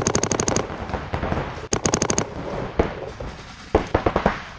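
DLX Luxe electronic paintball marker firing two fast strings of shots, well over ten a second, the second string about a second and a half after the first; scattered single pops follow near the end.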